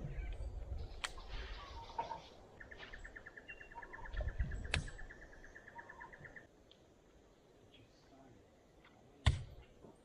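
A bird's rapid, even trill at one pitch, lasting about four seconds, over low rumbling noise. Sharp knocks come a few times, the loudest near the end.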